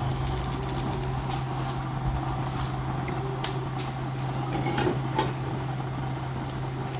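A metal spoon clinking and scraping against a large metal wok while a soup is stirred, a few sharp clinks scattered through, over a steady low hum.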